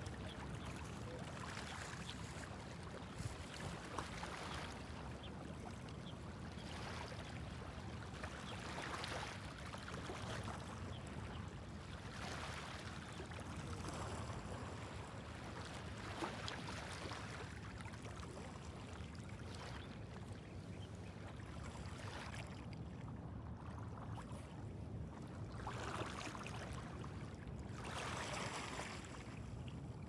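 Small sea waves washing up onto a cobble-strewn beach, each wash swelling and fading every few seconds over a steady low background of surf.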